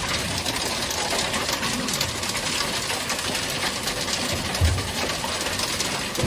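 Hailstones pelting a small boat's deck and fittings: a dense, continuous rattle of many small ice impacts, with a single low thump about four and a half seconds in.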